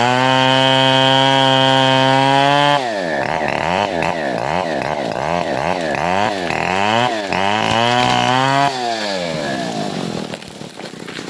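Stihl 070 two-stroke chainsaw at steady full throttle for nearly three seconds, then revving up and down rapidly over and over, with a second short steady spell, before dropping back and going quieter near the end.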